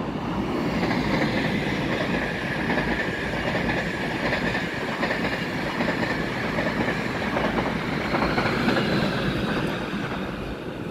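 Electric locomotive-hauled passenger train passing through a station at speed: a steady rushing rumble of wheels on rails that builds about a second in and eases off near the end.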